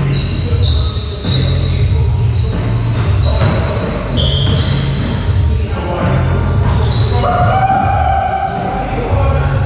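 Basketball game sounds in a gym: the ball bouncing and many short, high sneaker squeaks on the court floor, echoing in the large hall.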